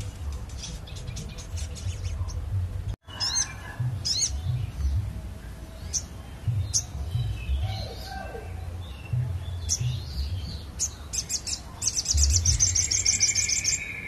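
Caged sogon songbird singing in sharp chirps and short whistled notes, breaking into a fast trill near the end, over a low background rumble.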